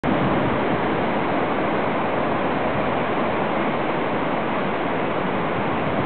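The Kamo River in flood, swollen by typhoon rain, rushing past in a steady noise of fast water.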